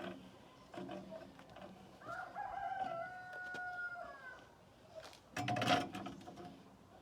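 A rooster crowing once, a long call held for about two seconds, followed a second later by a brief louder noise.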